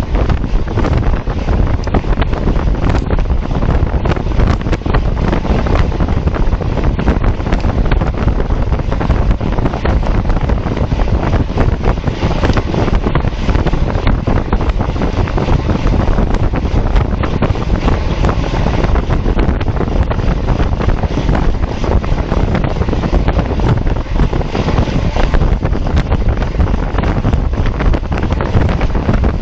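Loud, steady wind rushing over the microphone of a camera carried on a road bike ridden at speed.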